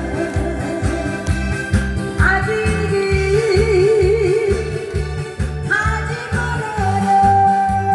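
A woman sings live into a microphone in a thick, husky voice over a backing track with a steady beat. She holds a note with a wavering vibrato about three to four seconds in.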